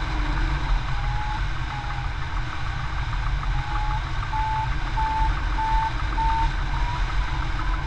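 Hang-gliding audio variometer beeping in short, evenly spaced pips, a little over one a second, creeping slightly higher in pitch. The beeping marks the glider climbing in lift. Under it, heavy wind rumble on the microphone from the airflow in flight.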